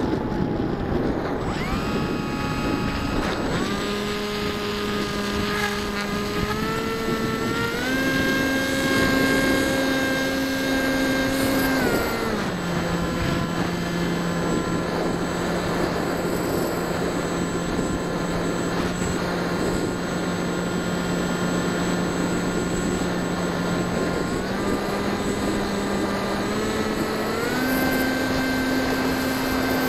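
Bixler 1.1 foam RC plane's brushless electric motor and pusher propeller whining, heard close from the onboard camera. The pitch steps with the throttle: up about 4 s in and again around 8 s, down near 12 s, then back up in two steps near the end.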